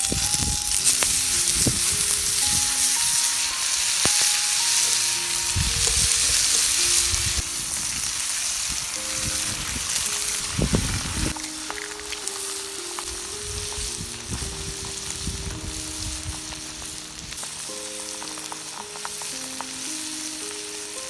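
Food frying in a pot over a campfire: a loud, steady sizzle with occasional stirring knocks and scrapes. The sizzle is strongest in the first several seconds and eases off after that.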